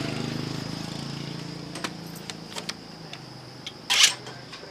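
An engine's steady drone fades out over the first three seconds, while small clicks of hand tools on metal parts sound here and there. A single sharp clank about four seconds in is the loudest moment.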